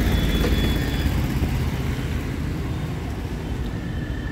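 Steady low rumble of passing road traffic, a little louder at first and slowly easing off.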